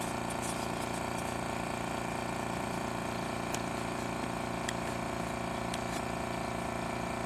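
A steady mechanical hum with a fine low pulsing that holds level throughout, with a few faint light clicks.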